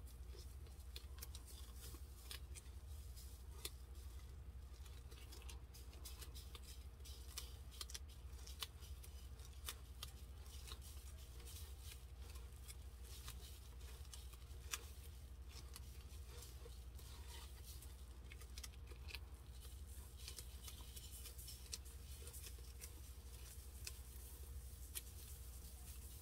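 Fine white glitter being sprinkled over a tumbler: a faint, scattered patter of tiny ticks over a steady low hum.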